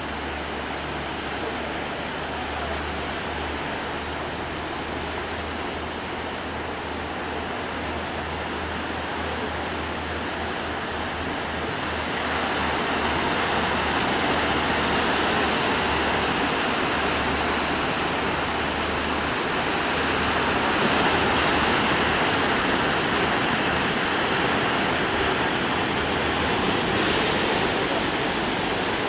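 Surf and rushing sea water at a river mouth, with a fishing boat's engine running low underneath. The wash of water grows louder about twelve seconds in and stays loud.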